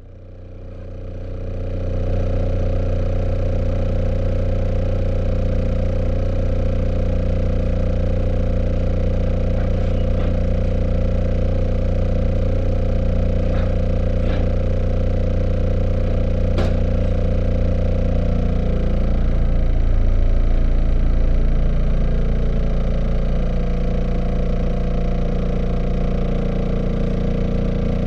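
Car engine idling steadily after a cold start, left running to warm the engine oil. A few faint clicks come through, and about two-thirds of the way through the engine note shifts briefly before settling again.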